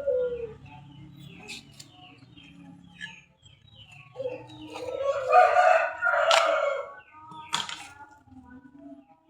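A rooster crows once, a long call of nearly three seconds starting about four seconds in. Small birds chirp throughout, and there is a sharp knock just after the crow.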